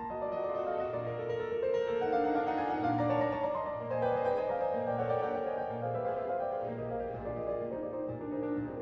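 Background music: piano-led instrumental with a repeating bass note about once a second.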